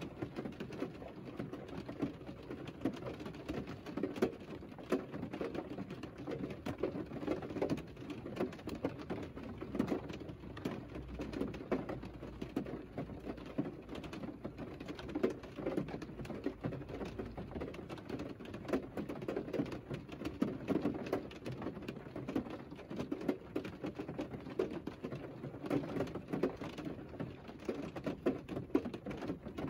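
Rain falling on a Mercedes car's roof and glass, heard from inside the closed cabin: a dense, irregular tapping of drops with a low, boxy thud to it.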